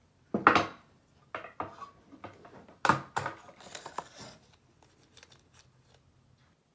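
Small hard parts and tools being handled and set down, clinking and clattering: two louder knocks about half a second and three seconds in, with lighter clicks between them that die away.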